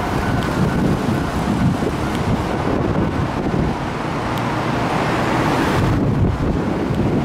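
Steady rumble and hiss of passing vehicles, with wind buffeting the microphone; the hiss falls away suddenly about six seconds in.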